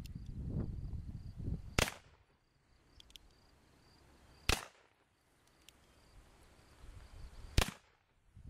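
Three single shots from 1858 Remington .44 cap-and-ball percussion revolvers firing 20-grain powder charges behind round balls, spaced about three seconds apart. A few faint clicks come between the shots, and a low rumbling noise runs before the first shot.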